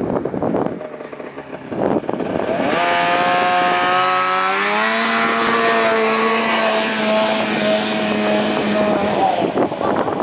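Arctic Cat Z440 snowmobile's two-stroke engine running at high revs: its pitch climbs about three to five seconds in, holds a steady high note, then drops away about nine seconds in. Wind buffets the microphone at the start.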